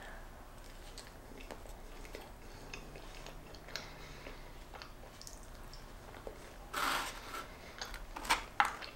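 Quiet close-miked chewing of a bite of soft Texas toast, with small wet mouth clicks. A few louder rustling crunches come near the end as fingers pick through the fried food in a foam takeout box.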